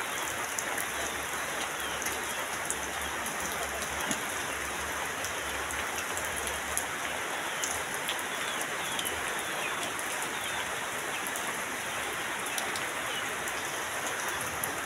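Heavy, torrential rain pouring steadily onto a waterlogged, muddy yard, a constant hiss dotted with many sharp drop impacts.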